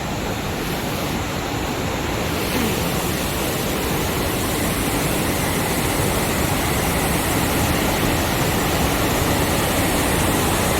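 Many high-pressure hose braiding machines running together: a steady, dense mechanical noise that gets a little louder and brighter about two seconds in.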